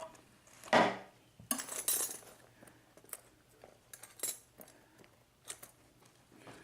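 Small metal lock parts, the cylinder's brass pins and parts, clinking and clicking as they are handled on a desk, in scattered sharp clicks with a louder knock just under a second in.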